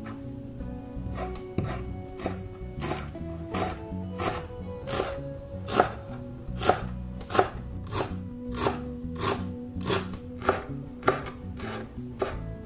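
Santoku knife chopping fresh dill on a bamboo cutting board: evenly spaced knife strikes on the wood, about one and a half a second, loudest in the middle stretch.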